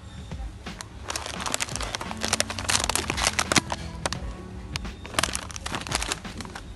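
Crinkling of a plastic snack packet being picked up and handled, in two bursts of crackle, over background music.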